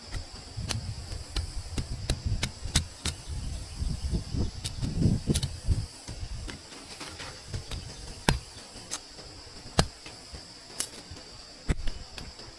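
Steady high insect chirring in the forest, with irregular sharp clicks and knocks from hands-on work and low rustling thuds in the first half.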